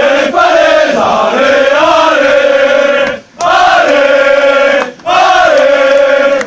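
A group of men chanting a team victory chant together, loud and sung in unison, in phrases broken by short pauses about three and five seconds in.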